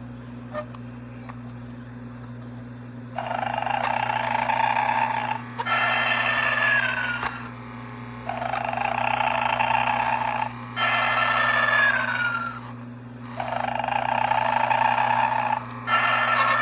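Gemmy animated Snoring Santa playing its recorded snore, three cycles starting about three seconds in: each a long rasping inhale, then an exhale that ends in a falling whistle, repeating about every five seconds. A steady low hum runs underneath.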